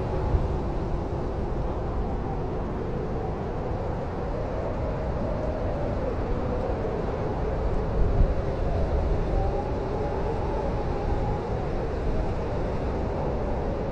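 Blizzard wind blowing in steady gusts: a wavering, drifting whistle over a low rumble, swelling briefly about eight seconds in.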